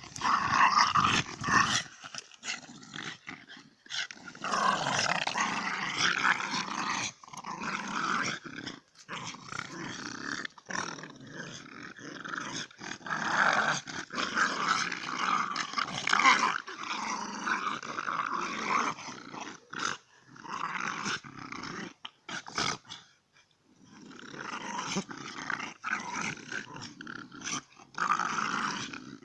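Dogs growling in rough play while tugging at a stick between them: long growls broken by short pauses, with a brief lull about two-thirds of the way through.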